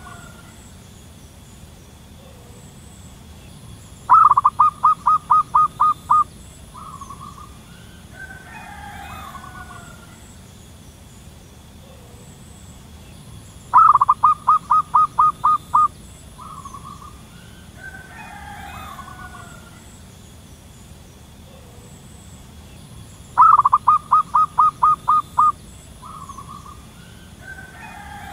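Wild zebra dove calling: three bouts about ten seconds apart, each a rapid run of about nine short, even cooing notes over two seconds, closed by one short lower note. Fainter, softer calls come between the bouts, over a faint steady high tone in the background.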